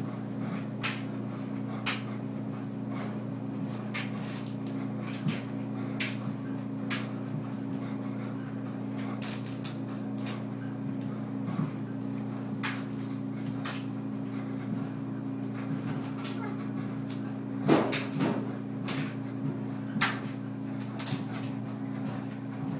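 Clothes being pulled out of a dryer drum and dropped into a plastic laundry basket: irregular knocks and clicks over a steady low hum, with a louder knock about three-quarters of the way through.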